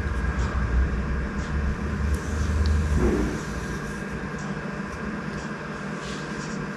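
Low rumble of a passing vehicle that fades out about three seconds in, with a faint steady whine and a few light clicks over it.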